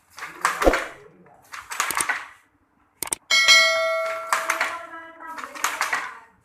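Traditional sarong loom clattering in a steady working rhythm, a loud clack about every second and a half. About three seconds in, a metallic ring sounds and fades over a couple of seconds.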